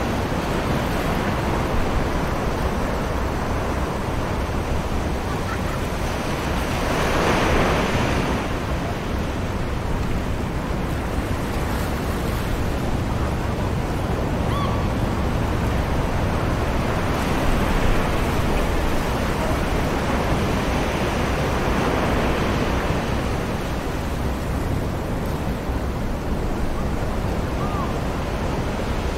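Sea surf washing steadily onto a beach, with a wave swelling and breaking about seven seconds in and another surge around the middle.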